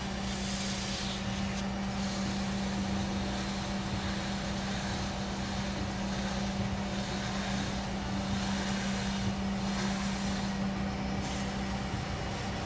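Wood lathe running with a steady motor hum while sandpaper is held against the spinning wooden pen finial, adding a soft hiss that comes and goes.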